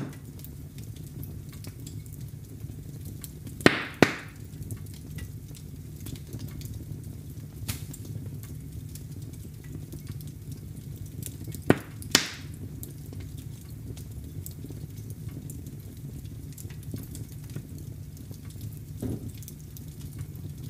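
Wood fire crackling in a fireplace over a steady low rumble, with small ticks throughout. A pair of loud sharp pops comes about four seconds in and another about twelve seconds in, with a softer pop near the end.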